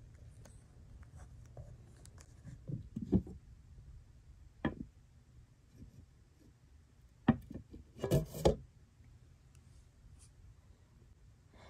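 Glass-and-steel lid being shifted on a large cooking pot used for a herbal steam bath: scattered soft knocks and rubbing, with a louder short clatter about eight seconds in as the lid is set ajar.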